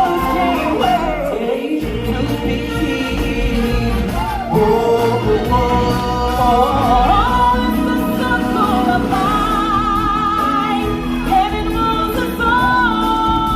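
Live stage-show music: voices hold long notes with vibrato over a steady bass line. A high note is held for about a second near the end.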